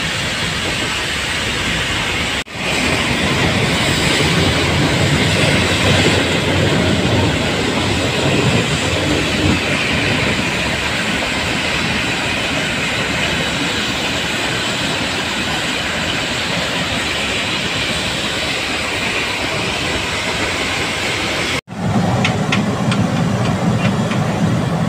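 Steam-hauled Nilgiri Mountain Railway train running downhill, heard from aboard a carriage: a steady, even running noise. Near the end this gives way to the steam locomotive standing at a station, hissing steam.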